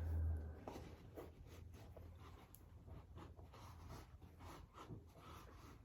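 Faint, irregular scratching and rubbing of hands handling a shoe while working Shoe Goo glue into its separating sole, after a short low rumble at the start.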